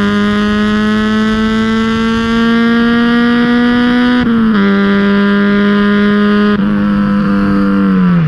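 Honda K20A2 2.0-litre VTEC four-cylinder, swapped into a Civic EG, pulling hard under full acceleration. Its pitch climbs steadily, then drops sharply with quick upshifts about four and six and a half seconds in, and falls again just before the end.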